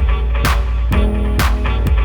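Background electronic music with a steady beat, sharp hits about twice a second over a strong bass.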